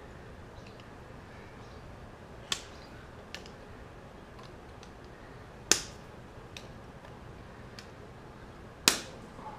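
Sharp metallic clicks and snaps of pliers working a steel cotter pin through the castle nut on the hub. There are small clicks a few seconds in and two loud snaps, one near the middle and one near the end, with faint ticks between them.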